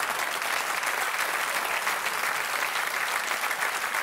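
Theatre audience applauding: many hands clapping in a dense, steady patter.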